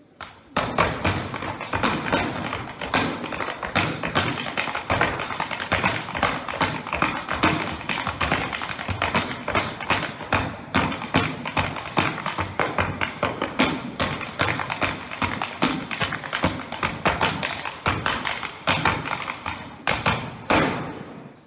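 Music with a driving beat of sharp percussive hits, starting abruptly about half a second in and dropping away just before the end.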